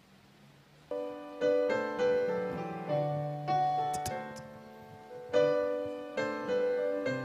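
Piano or electric keyboard playing slow, gentle chords, starting about a second in. Each chord is struck and then fades before the next.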